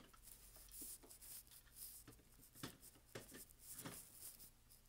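Faint, scattered clicks and knocks of plastic LEGO pieces as the lighthouse lamp section is pressed onto the house's roof.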